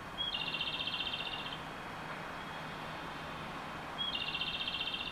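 A high, rapidly pulsing electronic chirp sounds twice, each time for about a second and a half and each opening with a short steady note. In between there is a steady low background hum.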